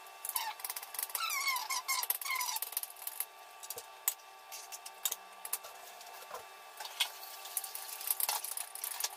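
Kitchen knife clicking and scraping on a plastic cutting board as chopped coriander is pushed off onto a plate, then light knife taps on the board. A few short, high squeaks falling in pitch come in the first few seconds.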